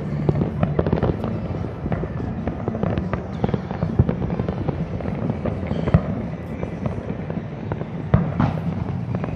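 Street fireworks going off all around: dense, continuous crackling of firecrackers, with louder single bangs about four, six and eight seconds in.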